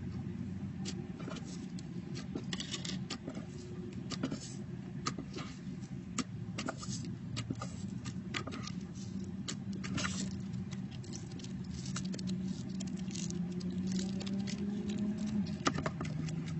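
Slime being pressed and worked by hand, making irregular small clicking pops, over a steady low hum.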